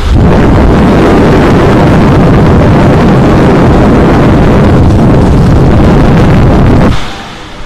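Air blast from a Symphony air cooler's fan striking a clip-on lapel microphone held at its grille: loud, steady wind rumble on the mic, which drops away abruptly about seven seconds in.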